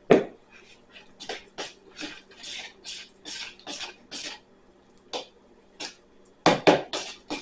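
Glue-based slime mixture being stirred in a container, irregular wet scraping strokes two or three a second, with a short pause past the middle and a louder run of strokes near the end.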